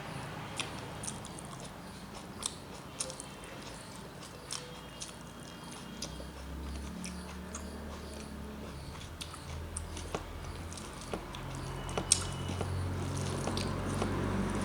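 Close-up mouth sounds of a person chewing rice and vegetable curry: irregular wet clicks and smacks, over a low steady hum.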